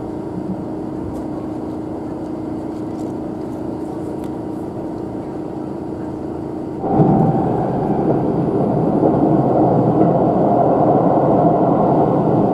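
Running noise of an express train in motion, heard from inside the car: a steady hum with a faint low steady tone, then, about seven seconds in, an abrupt change to a louder, rougher rumble.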